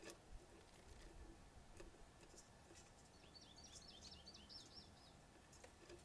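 Near silence with a faint bird call: a quick run of short, high chirps lasting about two seconds midway, and a few faint ticks.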